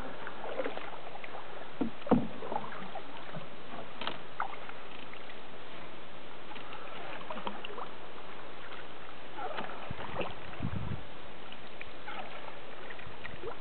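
Open canoe being paddled: paddle strokes through the water with small splashes and drips, and a sharp knock about two seconds in.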